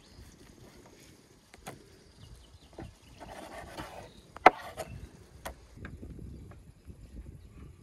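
A broad kitchen knife slicing raw beef on a wooden cutting board: a short scraping stretch and several sharp knocks of the blade on the board, the loudest about four and a half seconds in.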